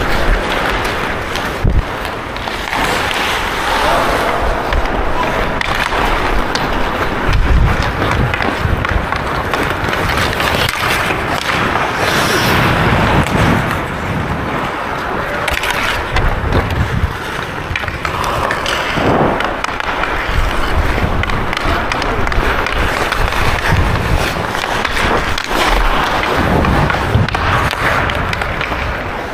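Ice hockey skate blades carving and scraping across rink ice at game pace, with low rumbling wind buffets on the helmet-mounted camera's microphone and scattered sharp knocks of sticks and puck.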